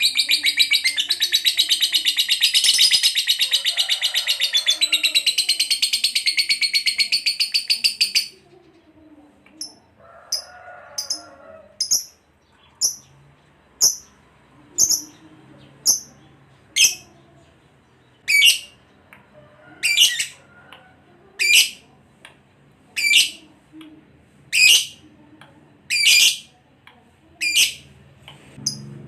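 Lovebird's long, rapid chattering trill, the extended 'ngekek' song kept for training cage birds. It cuts off sharply about eight seconds in and gives way to a string of short, high chirps, a little faster than one a second.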